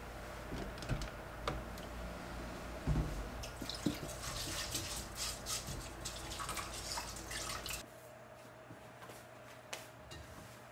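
Water dripping and splashing in a stainless steel kitchen sink, with small irregular drips and clinks. The water sounds stop suddenly about eight seconds in, leaving a few faint ticks.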